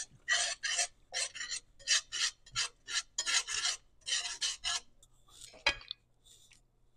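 Wire whisk scraping around a stainless steel skillet in quick rhythmic strokes, working stock into a thick roux-based gravy. The strokes stop about five seconds in, followed by a single sharp tap.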